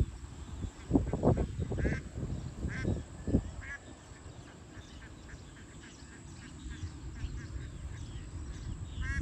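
Several short, quacking animal calls in the first few seconds, mixed with a few high bird chirps, then quieter steady outdoor background noise.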